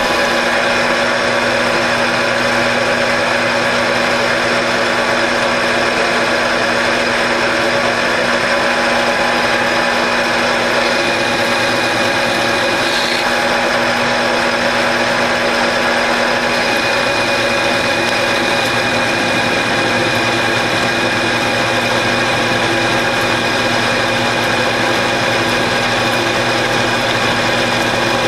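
Grizzly G4003G gear-head lathe running steadily with a whine of several held tones, its spindle turning a metal bolt blank while a turning tool cuts the shank down to a shoulder.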